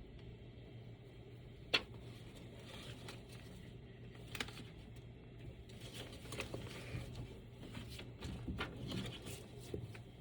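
Faint handling noise: scattered clicks and rustles, one sharp click about two seconds in, over a steady low hum.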